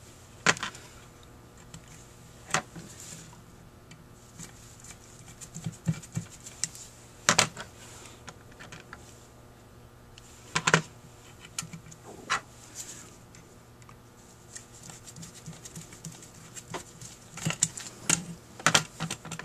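Scattered sharp clicks and taps of small metal tools and parts being handled while the screws for the throttle valves are fitted into a Rochester 4GC carburetor's cast-iron throttle body, about a dozen clicks spread irregularly with a louder cluster near the end.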